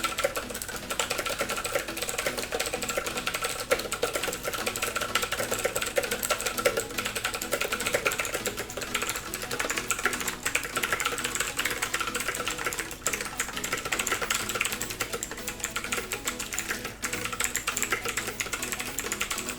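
Fast, continuous typing on a mechanical keyboard with clicky Huano Switchmaster Blue switches, a dense stream of key clicks.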